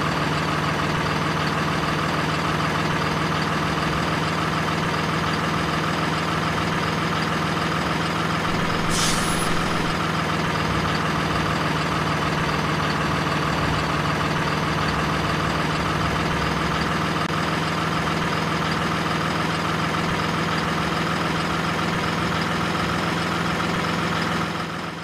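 Diesel truck engine idling at a steady speed, with a brief high hiss about nine seconds in. The engine sound fades out at the very end.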